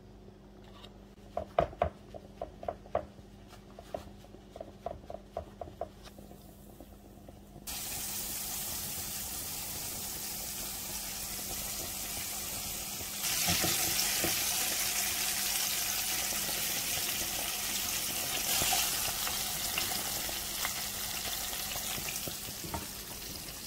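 A run of light taps and clicks, then flour-coated flying fish fillets frying in hot oil: a steady sizzle that starts about 8 seconds in and grows louder about 13 seconds in.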